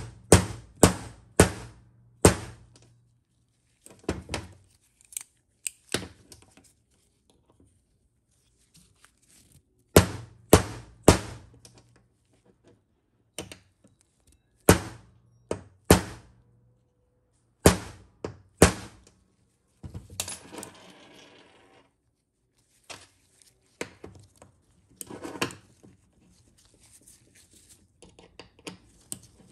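Small steel hammer tapping a pin punch to drive a pin through a TH350 transmission governor's driven gear: several runs of sharp metal taps, about two a second, with pauses between. Short scraping rasps of metal parts being handled come later.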